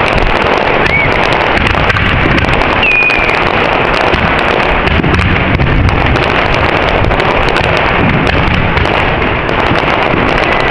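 Fireworks going off in a loud, continuous dense crackle of pops and bangs, with a couple of short whistles in the first few seconds.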